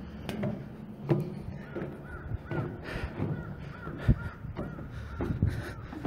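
A crow cawing in two runs of about four caws each. Footsteps knock on steel stair treads in between.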